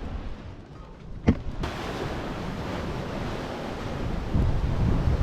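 Ocean surf washing ashore with wind on the microphone, a steady hiss. A single sharp click comes a little over a second in, and just after it the sound abruptly turns louder and fuller, with the low rumble of the surf swelling near the end.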